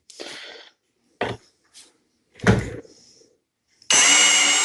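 A few light knocks and clicks of wood and a tool being handled and set in place, then a power drill starts suddenly near the end and runs steadily, driving a wood screw into a chair stringer.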